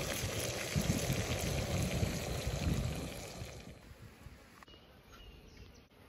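Trout and vegetables sizzling in oil in a frying pan, an even hiss that fades away about four seconds in, leaving a quiet outdoor background.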